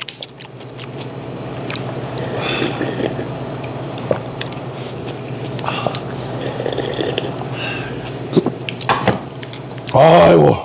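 A man slurping and gulping beef-head soup broth straight from an earthenware bowl, close to the microphone, with irregular sucking and swallowing sounds. Near the end he lets out a loud, drawn 'ah'.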